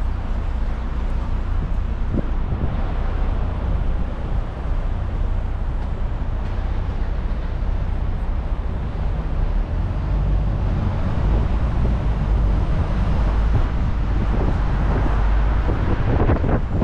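Road noise from aboard a moving sightseeing bus: engine rumble and passing traffic, with wind buffeting the microphone. The low rumble swells in the second half.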